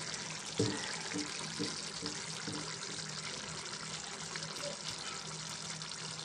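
Mutton and cauliflower curry simmering in a pan on a gas stove, a steady hiss, with a light knock just over half a second in.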